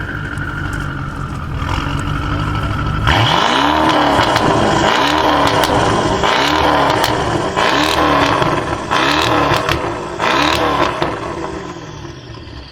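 Tuned BMW 650i V8 through its aftermarket exhaust. It runs with a steady low rumble, then from about three seconds in it is revved hard in six quick throttle blips, each rising and falling in pitch, with crackles and pops between them. The sound fades near the end.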